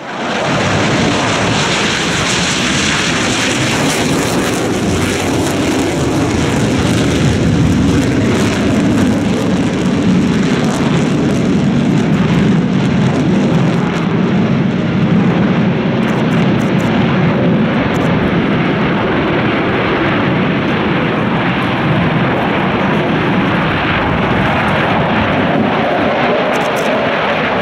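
Turbofan engines of a formation of J-10 fighter jets flying overhead: a loud, steady wash of jet noise that swells slightly now and then.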